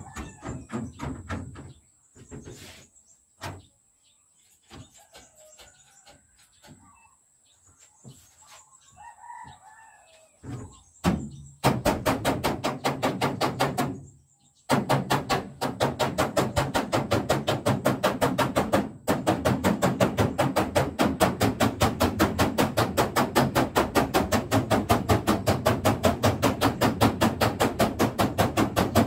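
Hammer tapping on the steel bonnet of a Toyota Celica to beat out its dents. A short run of quick blows at the start gives way to scattered knocks, then to steady rapid tapping of several blows a second, broken twice by short pauses. A rooster crows faintly during the quieter stretch.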